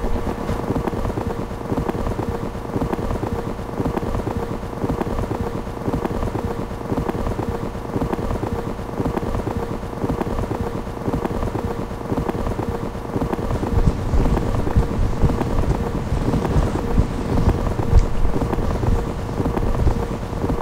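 Dense noise soundtrack: a steady droning tone under a fast, crackling rumble, the low rumble growing louder about two-thirds of the way through.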